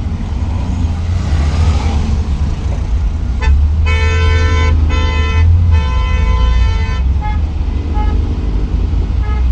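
Road traffic with a steady low engine rumble. A vehicle horn honks from about three and a half seconds in, sounding three blasts in a row, the last one longest. A few short toots follow near the end.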